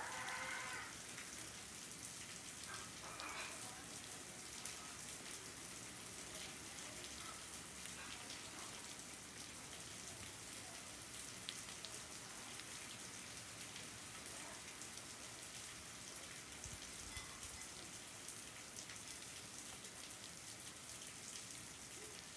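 Steady rain falling, with many small ticks of drops hitting surfaces.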